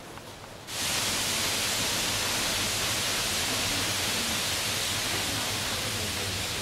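A loud, steady hiss of noise that cuts in abruptly about a second in and holds without change, with a low hum underneath.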